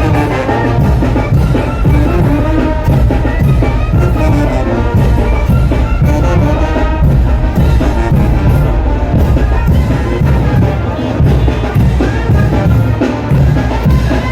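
Mexican brass band playing a son de chinelo, with trumpets and trombones carrying the tune over a steady drum beat.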